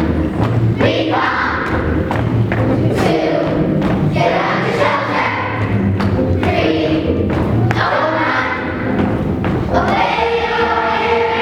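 A group of primary-school children singing together in unison as a choir, over music, with frequent thumps running through the song.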